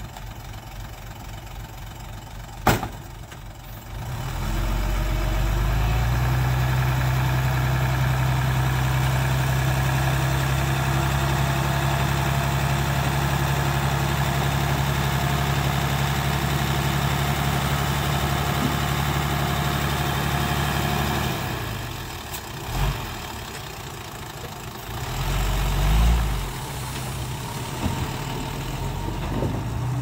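Engine of a small tipper truck held at a steady raised speed for about seventeen seconds while the hydraulic hoist lifts the loaded bed, then dropping back to a quieter idle. A sharp knock comes a few seconds before the engine speeds up, and low thumps follow near the end.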